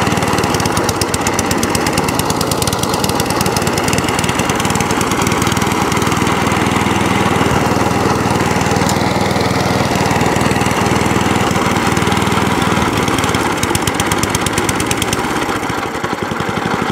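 Qualcast 14S petrol cylinder lawn mower running at working revs, with the self-propelled drive and the cutting cylinder engaged. The engine runs with a fast, even firing rhythm and drops back toward idle near the end.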